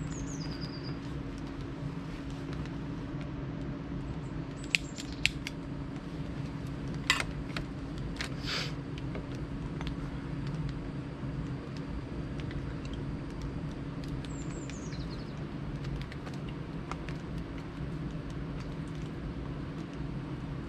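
A few sharp metal clinks of camping cookware and utensils over a steady low hum. A small bird gives short, high descending calls near the start and again around two-thirds of the way through.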